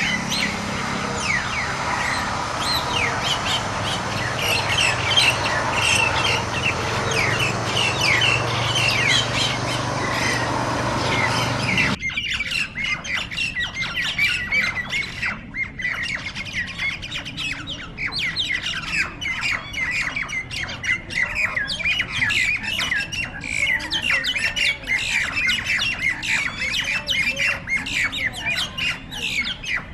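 Myna birds squawking, a dense run of harsh overlapping calls as they fight. About twelve seconds in the background changes abruptly and a low hum stops, while the squawking goes on.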